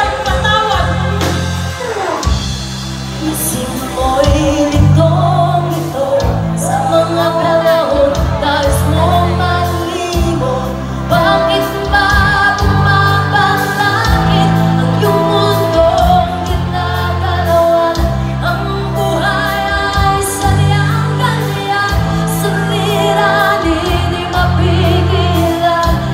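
Live pop-rock band performing: women singing into microphones over amplified electric guitar, bass, drums and keyboards, with a bass line that changes note about every second.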